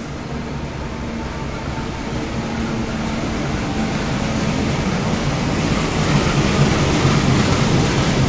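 Diesel-electric locomotive moving along the platform track, its engine running with a low steady drone that grows louder as it approaches and passes close by.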